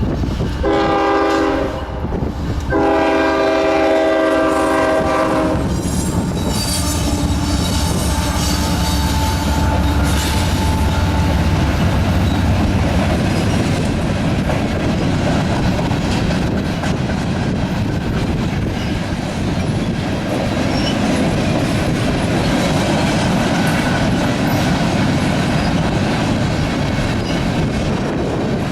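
Horn of a CSX GE ES44AC freight locomotive, a short blast and then a longer one, as the train nears a crossing. The lead units' diesel engines then pass with a deep rumble, followed by freight cars rolling by with a steady clickety-clack of wheels on rail joints.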